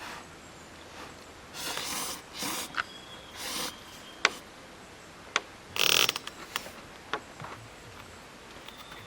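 Objects being handled: several short rustling or scraping sounds and a few sharp clicks, the loudest burst about six seconds in.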